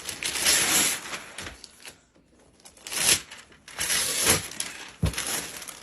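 Wrapping paper being torn and crumpled off a large present, in several rustling bursts, with a sharp thump just after five seconds.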